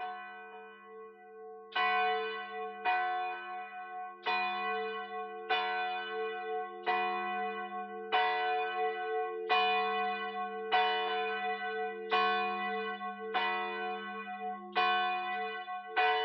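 A single church bell tolling steadily, struck about every 1.3 seconds, its low hum ringing on between strokes. The first stroke is faint and the rest are louder.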